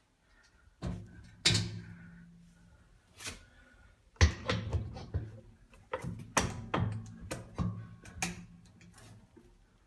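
Rebuilt glass-paned metal door of a wood-burning stove being hung on its hinges and latched with its coil-spring handle: a string of sharp metal clanks and knocks, the loudest about four seconds in.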